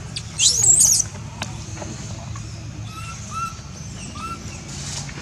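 A newborn baby macaque gives a loud, high-pitched squealing cry about half a second in. A few short, faint chirps follow later.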